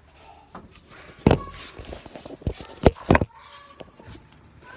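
Handling noise from a handheld phone camera being jostled and covered: a few sharp knocks and rustles, mixed with footsteps.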